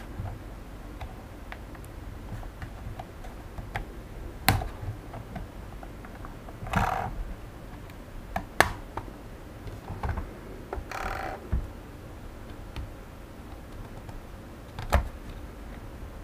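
The plastic shell of a drone remote controller being pried open by hand: scattered sharp clicks and snaps of the case halves and clips, with two longer scraping rubs of plastic about 7 and 11 seconds in.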